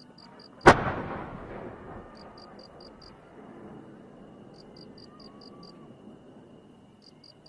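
Aerial firework shell launched from a mortar: one sharp, loud bang under a second in, its echo rolling away over about a second, then only faint background noise while the shell climbs.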